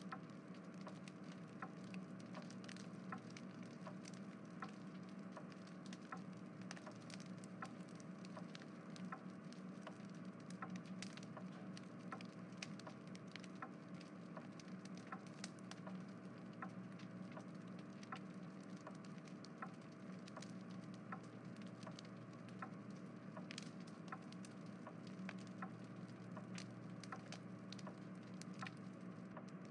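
Background ambience of an animated scene playing in the Plotagon app: a steady low hum with irregular faint crackling throughout.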